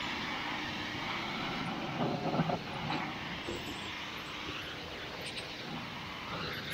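Pressure washer spraying, a steady rushing hiss as the water jet rinses loose dirt off a Jeep's wheels and tires.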